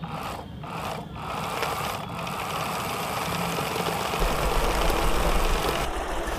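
Small motor of a miniature DIY model tractor running, driving a belt-and-shaft drive to a toy-scale flour mill: a steady mechanical whirring that grows a little louder, with a low rumble joining about four seconds in.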